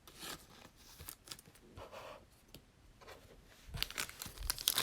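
Faint handling of trading cards, soft slides and light taps, then from about four seconds in the rising crinkle and tear of a 2020 Prizm Football card pack's wrapper being ripped open.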